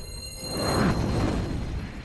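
Closing music sting: a deep, noisy swell with high steady tones over it, rising again about half a second in and then fading out.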